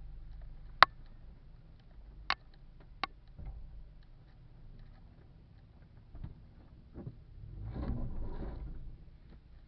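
Inside the cab of a four-wheel-drive vehicle crawling over a rough dirt trail: a low, steady engine hum with sharp knocks and rattles as the vehicle jolts. The loudest knock comes about a second in, and two more follow over the next two seconds. A rougher rumble swells up near the end.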